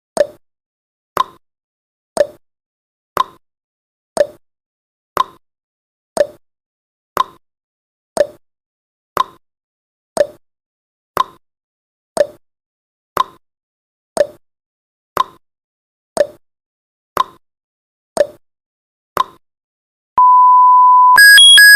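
Countdown timer's tick-tock sound effect: one tick a second, alternating between a lower and a higher click. About twenty seconds in, as the count reaches zero, a long steady beep sounds, followed by a quick run of high beeps at several pitches.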